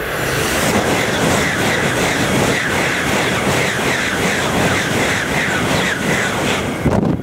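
Shinkansen bullet train passing at high speed right beside the track, a loud rush of air and wheel noise with a rapid rhythmic clatter of about three to four beats a second. It swells in at the start and cuts off abruptly near the end as the last car passes.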